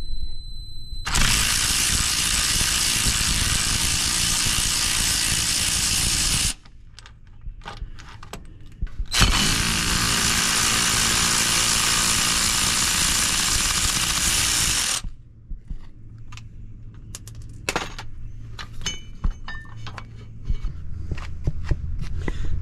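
A cordless power tool spinning a socket in two runs of about five and six seconds, backing out the bolts that hold the clutch slave cylinder to the bell housing. Light clicks and metal rattles follow.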